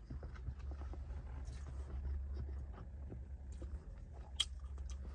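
A person chewing a mouthful of food close to the microphone, with small wet clicks and smacks, over a steady low hum. One sharper click comes about four seconds in.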